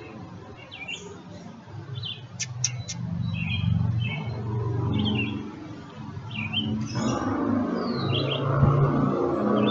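Small birds chirping again and again, short high chirps, some sliding downward, over a low rumbling noise that swells partway through and grows louder about seven seconds in. A single thump comes shortly before the end.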